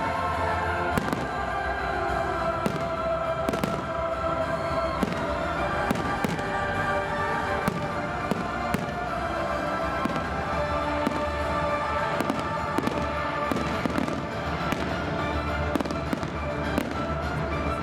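Fireworks display: an irregular string of bangs and crackles, several a second, with music playing along.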